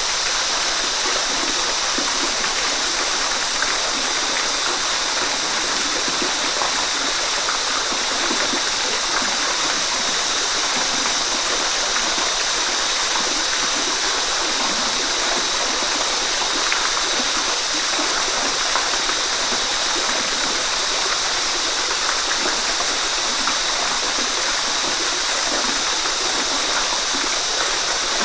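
Waterfall: water falling and splashing in a steady, unbroken rush, mostly hiss with little deep rumble.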